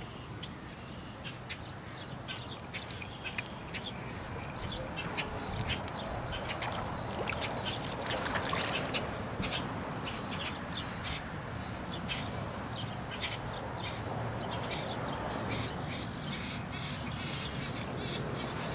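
Birds calling, with short chirps and clicks over a steady background hiss and a faint low hum. The hiss grows louder and noisier for a moment about eight seconds in.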